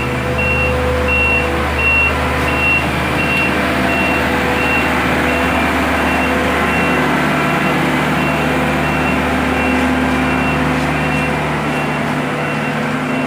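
Reversing alarm on heavy road-paving machinery beeping steadily, about two beeps a second, over the steady hum of the machines' engines. The engine note shifts about halfway through.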